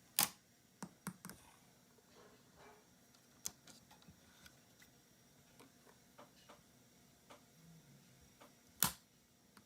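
Small clicks and taps from a plastic toy car being handled, its hood and parts moved. A sharp click comes right at the start and another near the end, with faint scattered ticks between.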